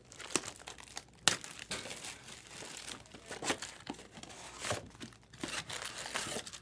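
Clear plastic shrink-wrap being torn and peeled off a cardboard trading card box, crinkling and crackling in irregular bursts, with the sharpest crackle a little over a second in.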